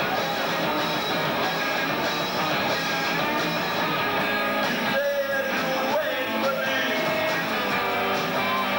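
A rock band playing live: electric guitar and drums, with a singer's vocals into a microphone.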